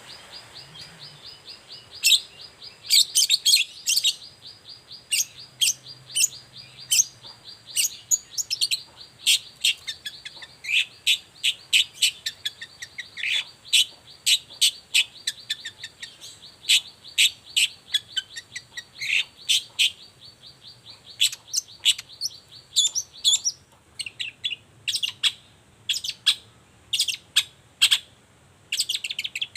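Long-tailed shrike (cendet) singing: a rapid string of loud, sharp chirping notes, over a fast, steady high trill that stops about four-fifths of the way through.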